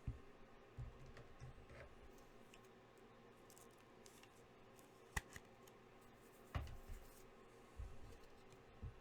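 Faint handling noises from trading cards and packs: a few sharp clicks and several soft low thumps.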